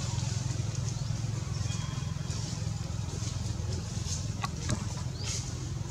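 Steady low engine hum, with a few faint high chirps and clicks scattered over it.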